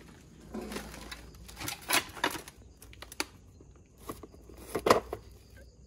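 Old plastic Sony videocassettes being handled and shifted in a stack: a string of irregular scrapes and clicks, the loudest cluster about five seconds in.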